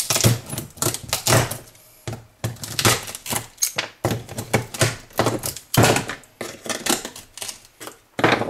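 Pliers breaking and prying components off a monitor's power-supply circuit board, making an irregular string of sharp clicks and cracks, about three a second.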